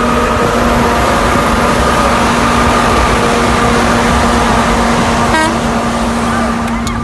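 Steady loud rush of road and wind noise inside a moving car at highway speed, with a steady low drone underneath.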